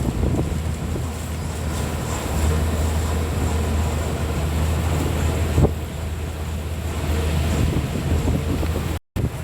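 Paddy combine harvester running steadily with a deep engine hum, wind buffeting the microphone and a single knock partway through.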